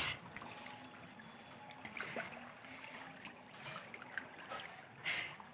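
Floodwater sloshing and splashing faintly as people wade through it, with a few separate splashes every second or two.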